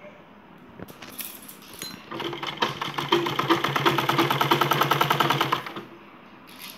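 Domestic sewing machine stitching zigzag ric-rac lace onto cotton fabric: a few light clicks, then a rapid, even clatter of the needle running for about three and a half seconds before it stops.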